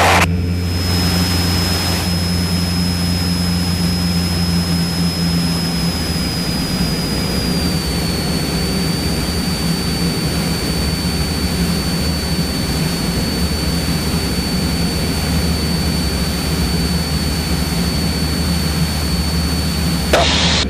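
Cessna 172's piston engine and propeller droning steadily in flight, heard inside the cabin. A thin high whine runs over it and drops slightly in pitch about eight seconds in; a short burst of noise comes near the end.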